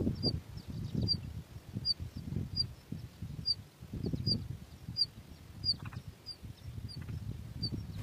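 A small bird's short, high call note repeated steadily, about once every three-quarters of a second, over a low rustling rumble.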